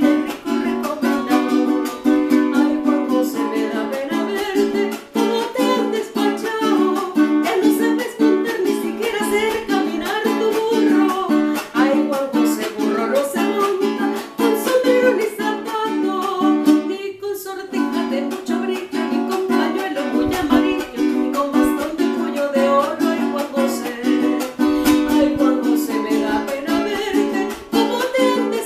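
A woman singing a Venezuelan merengue caraqueño in Spanish while strumming a cuatro in a steady rhythm. The sound breaks off briefly about two-thirds of the way through.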